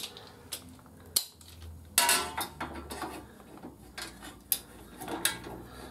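Scattered metallic clinks and clicks of hand tools, a torque wrench and sockets, knocking against a motorcycle engine's bolts and casing. The loudest comes about two seconds in and rings briefly.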